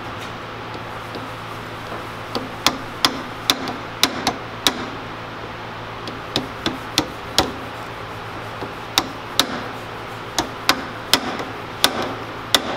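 Hammer tapping a small pin punch to drive out the retaining pin of a planet gear axle in an MG overdrive's planet carrier. About twenty sharp taps come in bunches with short pauses, starting about two seconds in.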